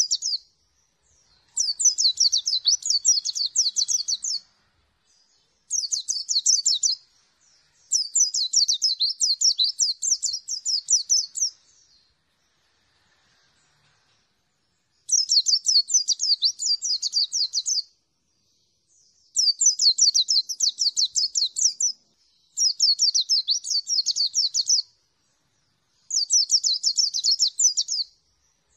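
A caged white-eye (pleci dakun) singing: seven phrases of rapid, high twittering notes, each one to four seconds long, with short pauses between them and a longer pause near the middle.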